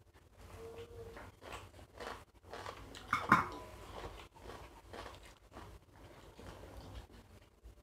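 Two people chewing and biting mouthfuls of biryani eaten by hand, with irregular crunching and mouth sounds close to the microphone. About three seconds in a sharp knock with a brief ring stands out as the loudest sound.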